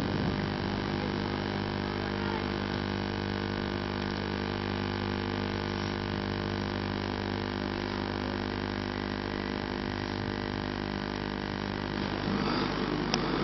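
Steady engine drone and hum heard from inside a moving car, holding an even pitch; a rougher rushing noise comes up about twelve seconds in, with a single sharp click just before the end.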